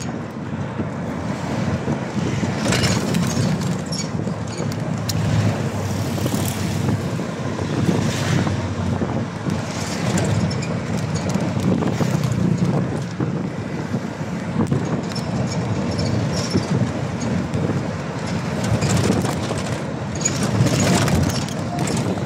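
Steady low rumble of a moving truck heard from its open back, with wind rushing over the microphone and a few short louder noises along the way.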